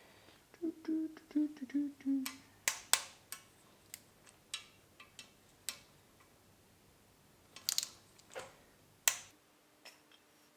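Scattered sharp clicks and knocks of tools and engine parts being handled during engine assembly, irregular and varying in loudness, with a clustered run of them about three quarters of the way through. Early on, a person hums briefly for about a second and a half.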